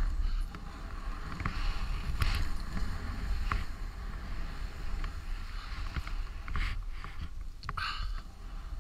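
Skis turning through deep powder snow: a hiss of sliding and spraying snow that swells into a louder swish every second or two. Under it runs a steady low rumble of wind on the microphone.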